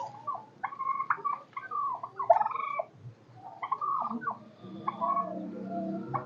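Farm birds calling: a busy run of short, overlapping chirps and squawks. A low steady hum joins in about two-thirds of the way through.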